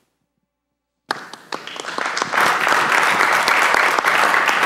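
After about a second of dead silence, legislators break into applause. It builds over the next second or so into steady clapping from many hands.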